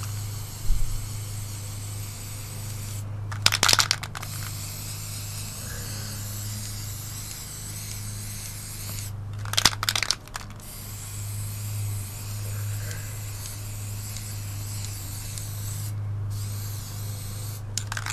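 Aerosol spray paint can spraying black paint through a paper stencil: a steady hiss that stops briefly a few times, with two short, loud, crackly bursts about three and a half and ten seconds in. There is a thump just under a second in, and a low steady hum underneath.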